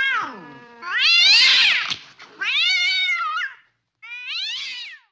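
Angry cat yowling: the falling tail of one drawn-out call, then three more long wailing yowls, each rising and then sliding down in pitch, the second one harsher and the last one shorter.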